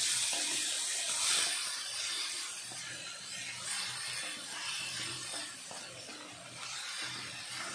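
Chopped tomatoes and spices sizzling in hot oil in an iron kadai, stirred and scraped with a wooden spatula. The sizzle is loudest in the first second or so and slowly fades.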